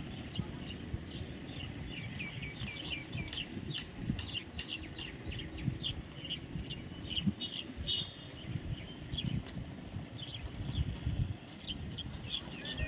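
Baby parrot chirping in quick runs of short high calls, several a second, each one dropping in pitch, over a steady low rumbling noise.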